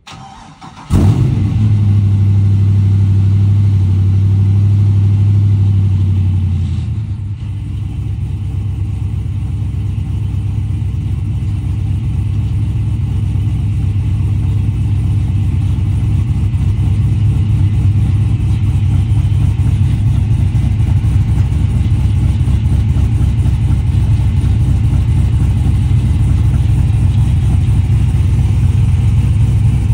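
Supercharged LS V8 in a Chevrolet C10 pickup starting up. It catches about a second in and holds a fast idle, then settles to a lower, steady idle about seven seconds in.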